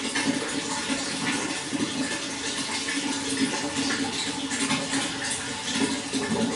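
Running water flowing in a steady rush with a constant low burble and small splashes.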